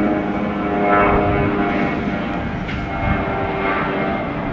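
Jet airliner engines running at high power, a steady mix of several held tones over a rushing noise.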